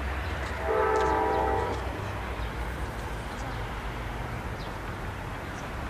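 Distant horn of an approaching Metra MP36PH-3S locomotive: one blast of about a second, about a second in, over a low steady rumble.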